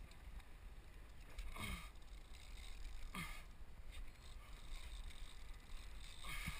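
Faint water sloshing and splashing against the side of a boat, with a few short splashes over a low rumble.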